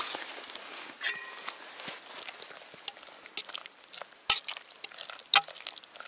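Cooking-pot handling sounds: a utensil clinking and knocking on an aluminium pot of dumplings on a camp gas stove. One ringing clink comes about a second in, then a run of small clicks, with two sharp knocks about a second apart near the end the loudest.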